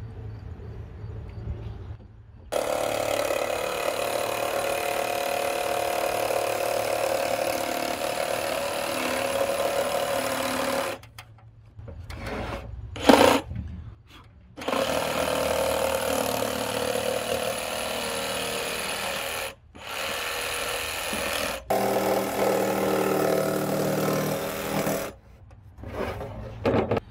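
Power saw cutting a wooden board. It starts about two seconds in and cuts for about eight seconds, then stops. After a short sharp noise it runs again for about ten seconds, with two brief stops.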